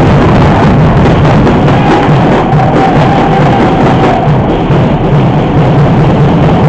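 Loud, steady din of a handball crowd in a sports hall, with drumming among the spectators.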